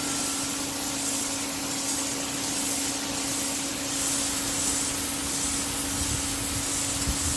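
Electric pressure washer running with the trigger held: a steady hum from the motor and pump under the hiss of the water jet blasting concrete. The pump runs only while the trigger is pulled.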